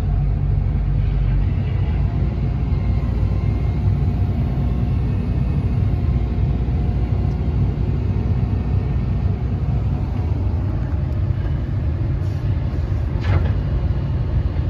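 XCMG 210 excavator's diesel engine running steadily, heard from inside the cab while the arm and bucket are worked; a single short knock about 13 seconds in.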